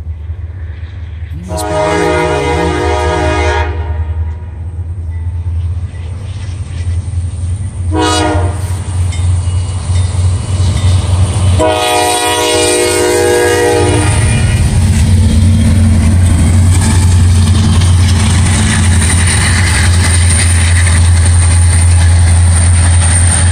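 CSX freight train's diesel locomotive horn sounding for a road grade crossing: a long blast, a short one, then another long one, followed by the loud, steady rumble of the diesel locomotives' engines as they pass slowly close by.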